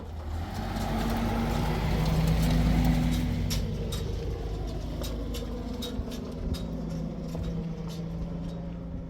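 A motor vehicle's engine running, swelling to its loudest about three seconds in, then slowly fading away with a gently falling pitch, as it drives past, with scattered light clicks over it.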